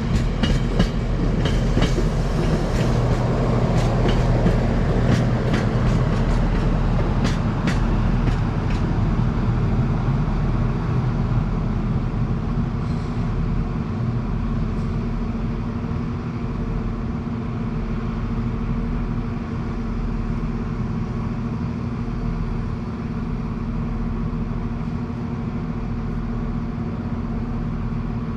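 Diesel Tilt Train passing, its wheels clicking over rail joints in quick succession for the first several seconds, then settling into a steady low diesel engine drone.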